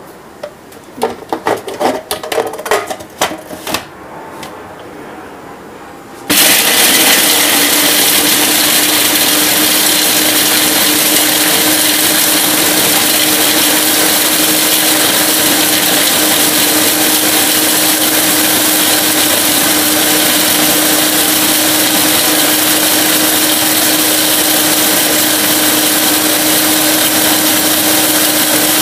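A few knocks and clicks of handling a food processor, then about six seconds in its motor starts abruptly and runs steadily and loudly with a constant hum, chopping slices of bread into breadcrumbs.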